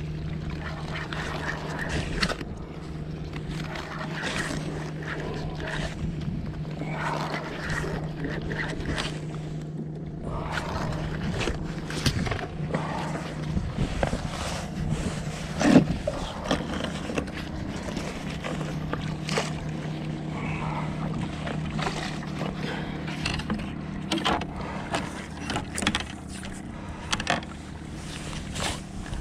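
Gear being handled on a plastic fishing kayak's deck: irregular knocks and scrapes against the hull, over a steady low hum and the wash of water around the kayak.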